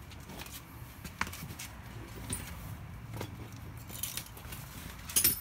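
Metal hand tools clinking and clattering as they are searched through, a series of light clicks with one sharper clack near the end.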